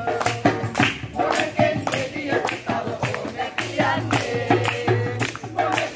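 Music with a steady percussion beat, a few strokes a second, and singing, with some hand clapping.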